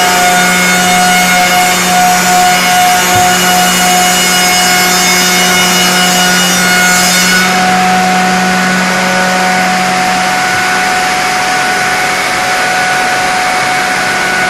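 Panel sizing machine running, its electric cutter motors giving a steady whine over a hiss as a door panel feeds through on the conveyor. About halfway through, the high cutting hiss drops away, leaving the motors running.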